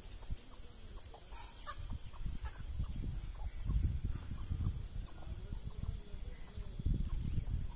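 Chickens clucking in short calls, over louder low rumbling and thumping that comes and goes, strongest about halfway through and again near the end.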